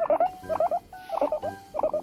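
Guinea pig calling in short bursts of quick pulsed chirps that repeat in a steady rhythm, about two bursts a second.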